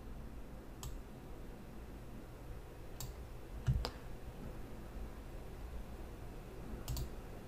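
A few scattered computer mouse clicks while spreadsheet columns are being selected: one about a second in, two close together around three to four seconds (the second the loudest, with a low knock), and a quick double click near the end, over faint room hiss.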